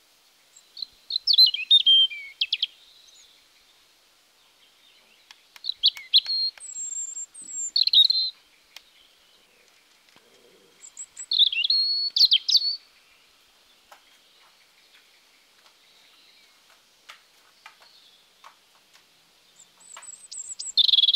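European robin singing: four short, high warbled phrases a few seconds apart, made of thin whistles and quick trills.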